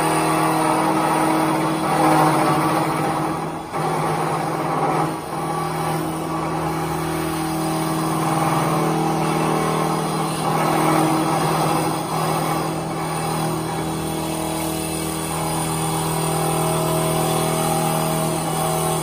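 CNC wood lathe running, spinning a wooden spindle while its cutter turns the profile: a steady motor hum mixed with the noise of wood being cut. It dips briefly twice, around four and five seconds in.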